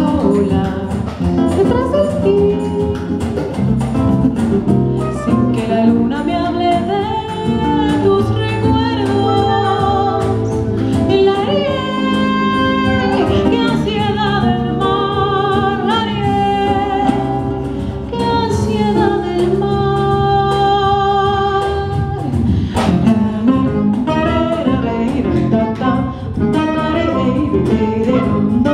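Live band playing a jazz-inflected Colombian and Brazilian song: a woman singing over acoustic guitar, electric bass and drum-kit percussion. Her voice carries long held notes with vibrato through the middle of the passage.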